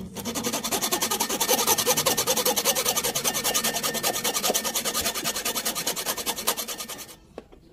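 Hand tool rasping rapidly back and forth on a small part, a fast, even scraping rhythm that stops abruptly about seven seconds in.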